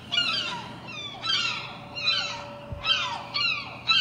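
Gulls calling: a rapid series of repeated, falling cries, several in close succession.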